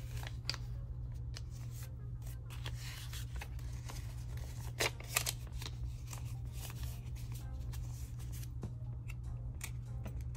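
Paper cash being handled: bills rustling with short crisp snaps, the sharpest a couple about five seconds in, over a steady low hum.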